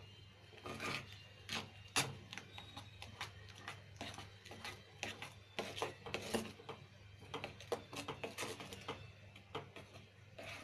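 A metal spoon stirring thick oats and moong dal porridge in a nonstick pan: irregular scrapes and light taps against the pan, with a low steady hum underneath.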